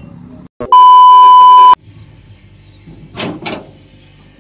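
A loud electronic beep tone, one steady pitch held for about a second, cut in over faint road noise. A couple of short rustling noises follow near the end.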